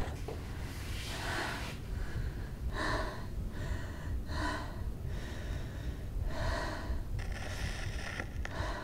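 A woman breathing in gasps, about five breaths spaced a second or more apart, over a faint low rumble.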